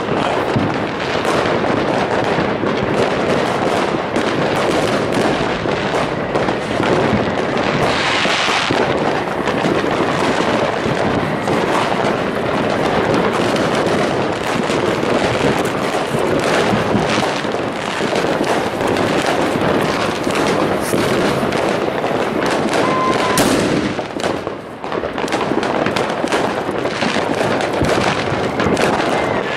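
Dense, continuous barrage of fireworks and firecrackers: many overlapping bangs and crackles with no pause between them. A rushing hiss comes about eight seconds in, and a short falling whistle near the end.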